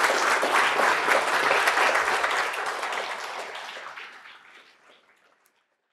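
Audience applauding, the clapping steady at first and then dying away after about three seconds.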